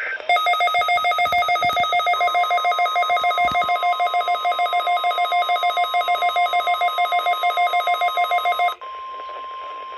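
A weather alert radio receiver's alarm beeps rapidly, about five or six beeps a second, and stops abruptly near the end. It has been set off by the NOAA Weather Radio 1050 Hz warning alarm tone, which is heard as a steady single tone under the beeping from about two seconds in and carries on alone after the beeping stops.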